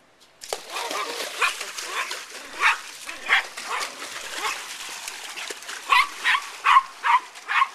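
Small dog barking in short, sharp yaps at hands splashing water in an inflatable pool, over the steady hiss of the splashing; the barks come faster near the end.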